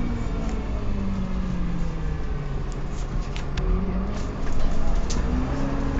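Dennis Dart bus's engine and drivetrain running under way, with a low rumble and a whine that slides down and back up in pitch as the bus slows and speeds up: an odd gear whine from the drivetrain. A few short rattles and clicks sound through it.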